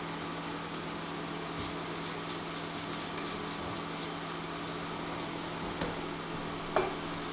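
Salt shaken from a container into a pan of sauce: a quick run of light rattling shakes over about two seconds, then a light knock near the end as the container is set down on the counter, all under a steady electrical hum.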